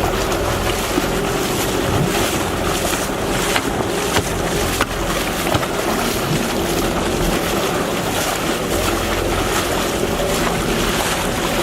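Boat engine running steadily under way, with wind on the microphone and water rushing and splashing along the hull.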